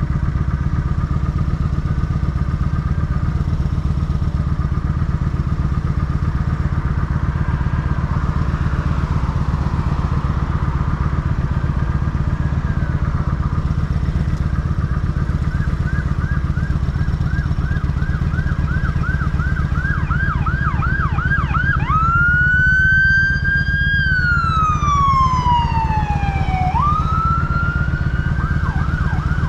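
Kawasaki Vulcan 900 Custom's V-twin idling at a standstill, a steady low rumble. Over it an emergency vehicle's siren sounds: a faint wavering wail at first, then a fast yelp, a long rising and falling wail, and the yelp again near the end.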